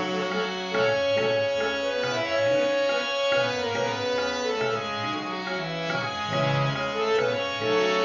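Hand-pumped harmonium playing an instrumental interlude between sung lines: its reeds sound a held melody over chords, with a tabla beat underneath.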